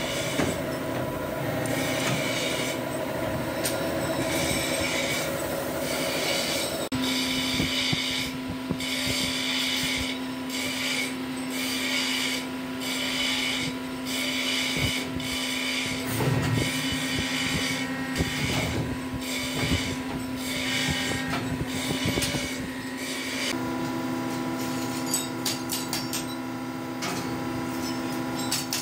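Aluminium die-casting machine running: a steady hum from its hydraulic system, with a noisy pulse about once a second. Near the end, a few light metallic clinks.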